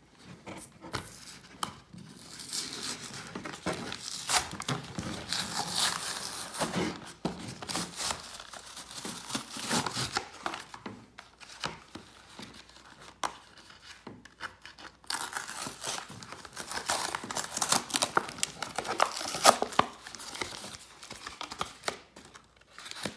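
Packaging of a Pokémon trading card box being torn open and crinkled by hand, in irregular rustling bursts with a couple of short pauses.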